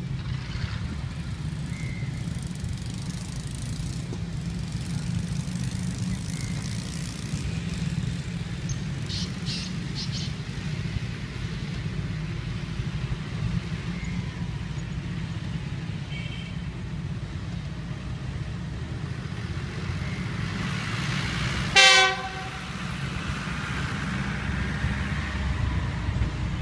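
GEU-40 diesel-electric locomotive running with a steady low rumble as it pulls away. Near the end its horn gives one short, loud blast.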